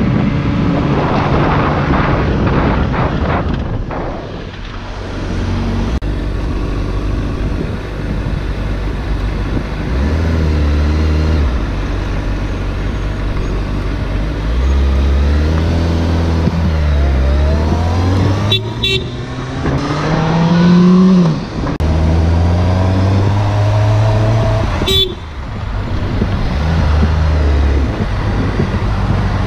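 Sportbike engine pulling and easing off through the gears. Its pitch rises on each pull and drops at each shift, over wind noise. Two brief sharp sounds cut through, one past the middle and another about six seconds later.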